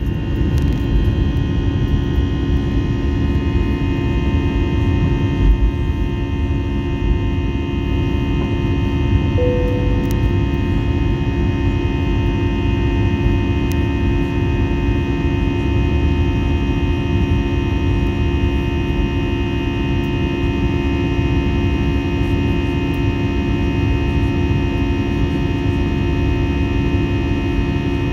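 Airbus A320 jet engines and airflow heard from inside the cabin: a steady drone with a few held whining tones. A brief tone sounds about nine seconds in.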